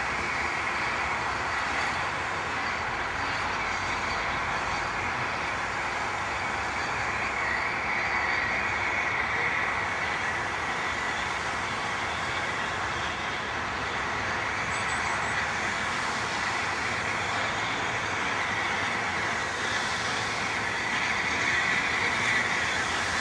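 Steam locomotive working with its train in the distance: a steady wash of steam and running noise with no distinct exhaust beats, swelling a little at times.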